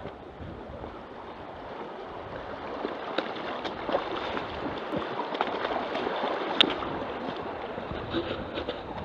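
Shallow forest stream rushing over rocks, with the splashes and scuffs of a runner's feet wading through it and a few sharp knocks.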